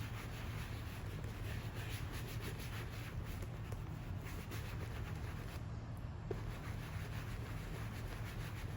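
Microfiber towel rubbing leather cleaner into a leather bag in circular strokes, a soft repeated scrubbing that fades after about five seconds, over a steady low hum.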